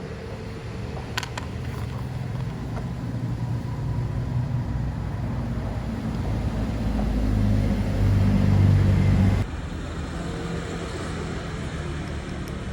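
A low mechanical rumble that grows louder, then cuts off suddenly about nine seconds in, leaving a quieter background.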